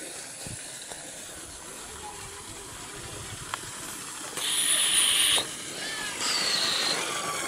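Steady hiss of running water at a hot spring. Two loud, high-pitched buzzes cut in and out over it: one about four and a half seconds in, lasting about a second, and a shorter one that dips slightly in pitch near the end. Faint short chirps sound in between.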